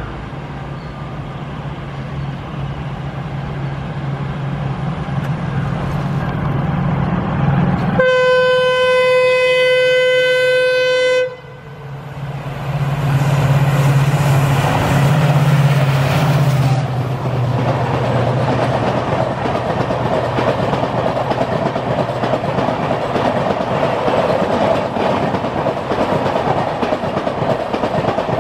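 EMD WDP-4D diesel locomotives: one engine running louder as it approaches, then a sudden horn blast of one steady note lasting about three seconds. After a short drop, a second WDP-4D's engine rises as it runs past, followed by the coaches rolling by with steady wheel clickety-clack.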